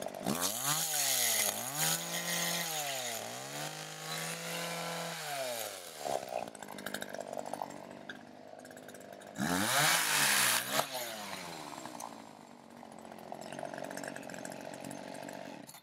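A chainsaw revving up and down several times in the first six seconds, then once more a little past halfway, its pitch rising and dipping as it is run through wood.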